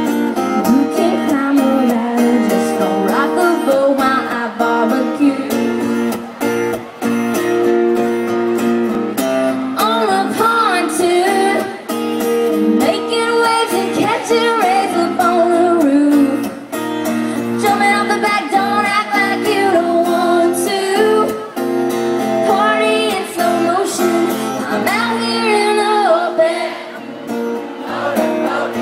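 A woman singing a song over strummed acoustic guitar.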